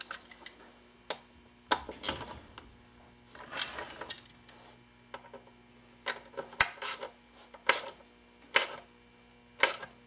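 Hand socket ratchet clicking in a string of short strokes as bolts are snugged down by hand, with light metal clicks of the socket and hardware between strokes. The tightening is kept gentle so as not to crack the fiberglass fender.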